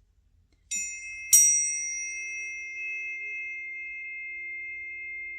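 Two planetary tuning forks struck one after the other, the first about two thirds of a second in, the second a little louder about half a second later. Each leaves a clear, steady ringing tone, the first high-pitched and the second lower, both sustaining together.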